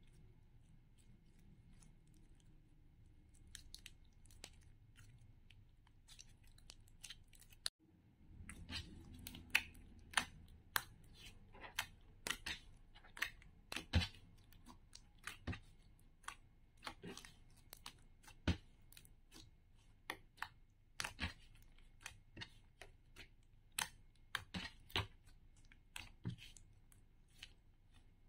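Glossy slime being squeezed and poked by fingers: soft stretching at first, then from about eight seconds in a fast run of sharp, wet clicks and pops as air pockets in the slime burst.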